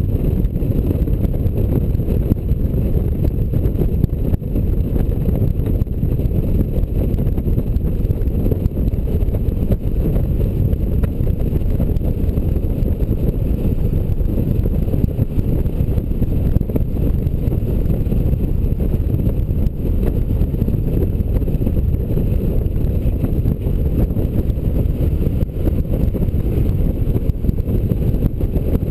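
Honda Gold Wing touring motorcycle cruising at a steady speed: a constant low rumble of wind buffeting the microphone mixed with engine and road noise.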